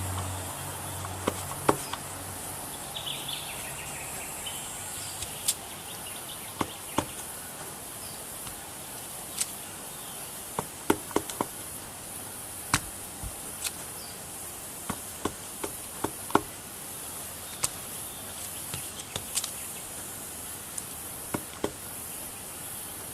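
Rubber stamp being dabbed on an ink pad and pressed onto paper: irregular light taps and clicks, some in quick clusters, over a steady high hiss.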